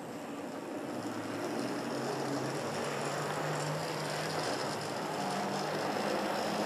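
Model railway train running along the track: the locomotive's electric motor hums under the rolling of wheels on rails, growing louder as it comes nearer.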